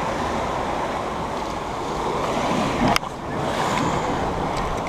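Surf washing over coastal rocks, a steady rush mixed with wind on the microphone. A short knock sounds about three seconds in.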